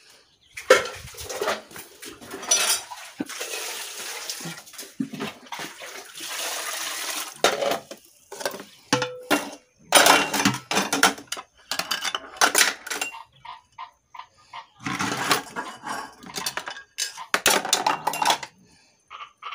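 Cookware being handled. For the first several seconds there is a rushing, splashing sound of liquid being poured. After that come repeated clinks, knocks and scrapes of metal pots, lids and a plastic basin.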